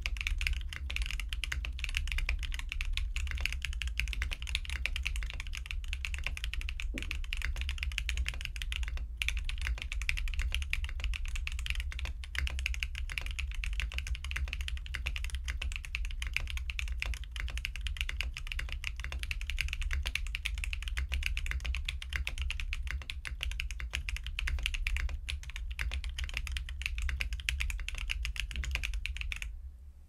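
Fast, continuous typing on a QK60 custom mechanical keyboard with lubed Strawberry Milk tactile switches, an aluminium plate, a non-flex-cut PCB and no foam, the keys clacking in a dense rapid stream. The typing stops just before the end.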